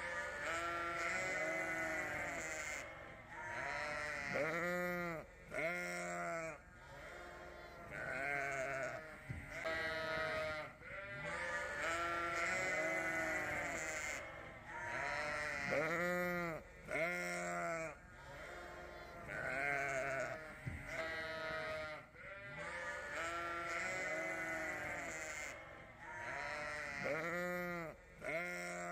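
A flock of ewes bleating: many overlapping calls, some short and some drawn out, with no break.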